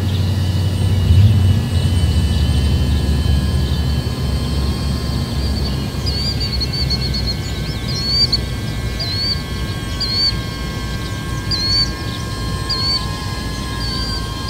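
DJI Avata cinewhoop drone's propellers whining steadily in several tones. A bird chirps about once a second from about six seconds in, and a low rumble fades over the first few seconds.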